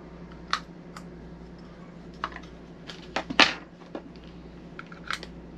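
Small plastic clicks and taps as AAA batteries are handled and pressed into the slots of a hard plastic battery storage case, about half a dozen scattered clicks with a louder knock about three and a half seconds in.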